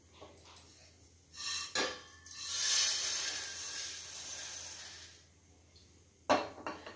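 Dry-roasted vermicelli poured and scraped out of an aluminium kadai onto a plate: a short clatter and click, then a dry rustling hiss for about three seconds that fades away. A knock near the end.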